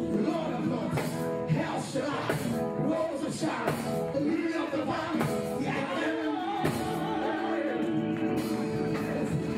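Live gospel music: a woman singing through a microphone over a band, with a steady beat.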